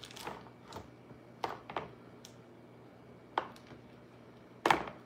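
Plastic card sleeves and toploaders handled in the hand: a handful of short crackles and taps, the loudest near the end, over a faint steady hum.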